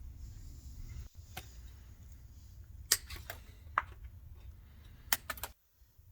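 A handful of sharp clicks and ticks of plastic being handled and snipped, the zip ties holding the lamp holder, over a low steady hum that cuts off near the end.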